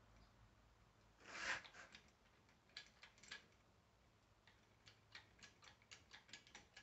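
Hand-pumped hydraulic crimping tool being worked to crimp a lug onto heavy 2/0 cable: faint clicks from the pump handle, coming in a quick run over the last couple of seconds. A brief louder rustle comes about a second and a half in.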